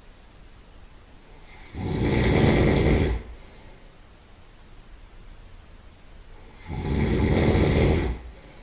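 Loud nasal snoring from a person lying on their side: two long snores about five seconds apart, each lasting about a second and a half.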